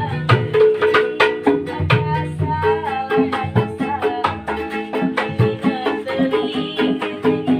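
Music with a quick, steady beat of hand percussion under a plucked string instrument carrying a melody.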